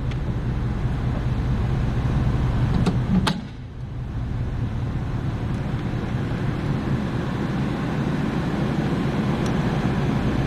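Rooftop HVAC equipment running with a steady low hum. A sharp click comes about three seconds in, after which the hum drops for a moment and then slowly builds back up.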